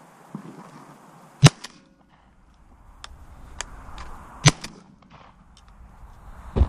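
Two shotgun shots about three seconds apart, each a sharp crack followed a moment later by a fainter one, with a few small clicks between them.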